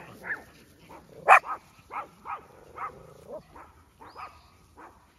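A dog barking: one loud bark about a second in, then a run of shorter, softer barks and yips.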